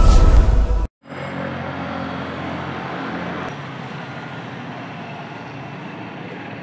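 The end of the intro music, which cuts off about a second in, followed by outdoor street and traffic ambience. A low motor-vehicle engine hum runs under the ambience and fades out about halfway through.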